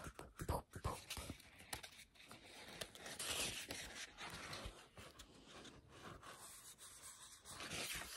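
Faint rustling and scraping of a picture book's paper pages being handled, with a page being lifted and turned near the end.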